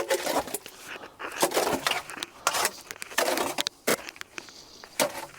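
Wet concrete mix being poured and worked into a foundation form: irregular scraping and slopping, with a couple of sharp knocks near the end.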